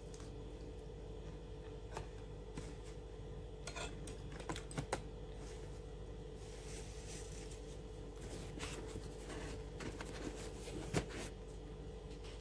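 Bread and its wrapping being handled and eaten close to the microphone: scattered crackles and clicks, a stretch of rustling about six to eight seconds in, and a sharp click about eleven seconds in.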